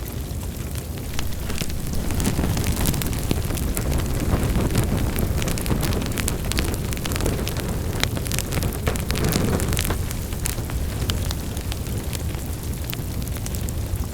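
Wood fire in a fireplace crackling, with frequent sharp pops and snaps over a steady low rumble of burning.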